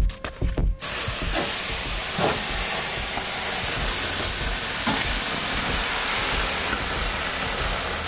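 Melting snow and water sizzling with a steady hiss on a hot wood-stove top, where a snow-packed gas tank is set down to thaw. Background music cuts off about a second in.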